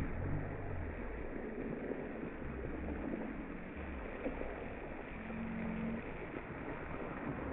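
Steady outdoor background noise with uneven low rumbling from wind on the microphone, and a faint steady hum for about a second, about five seconds in.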